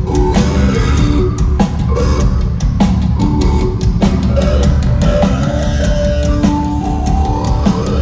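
Hard-rock band playing live, heard loud from the crowd: drum kit with steady hits, electric guitars and a singer at the microphone.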